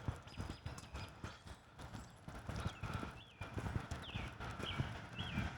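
Footsteps of a person walking, a steady run of low thuds. From about halfway in, a small bird chirps about five short notes.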